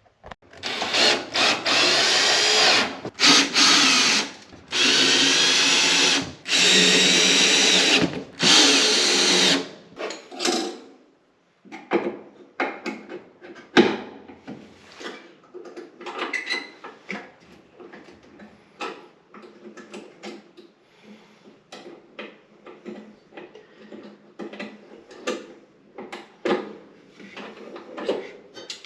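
A power drill runs in about five bursts of a couple of seconds each, driving screws while the dryer is reassembled. After that come many light clicks and knocks of panels, screws and parts being handled.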